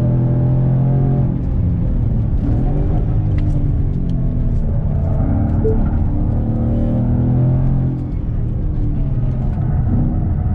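Ford Mustang engine heard from inside the cabin, its pitch falling and climbing as the car is driven through gear changes on track, with road and tyre noise underneath.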